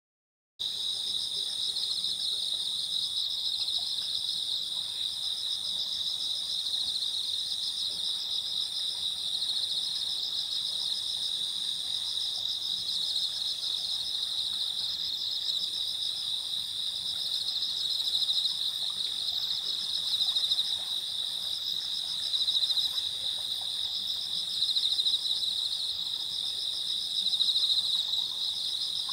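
Chorus of night-singing insects, many trilling steadily at high pitch in several overlapping bands, one of them with regular short breaks. It starts abruptly about half a second in.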